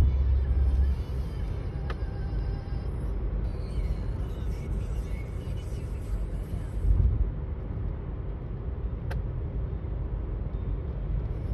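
Steady low road and engine rumble heard from inside a moving car, louder in the first second, with a short click about nine seconds in.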